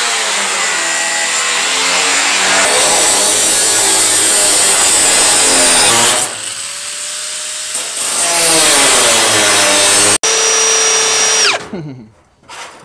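Angle grinder with a cutoff wheel cutting through thin sheet metal: a loud, harsh, steady scream that eases briefly about six seconds in as the wheel spins back up, then bites again. Near the end a power tool's motor runs at one steady pitch and then winds down quickly.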